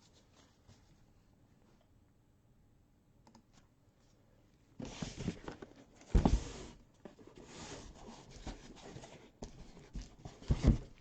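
Cardboard card boxes and their wrapping being handled: rustling and scraping, with two sharp knocks as a box is set down.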